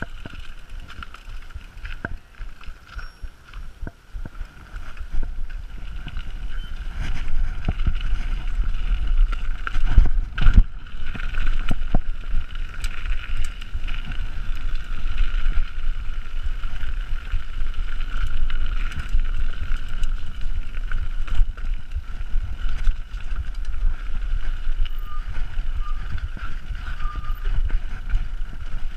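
Mountain bike descending a dirt trail: wind buffeting the camera microphone as a low rumble, with the bike rattling and clacking over bumps. The noise builds over the first several seconds as speed picks up, with the hardest knocks about ten seconds in.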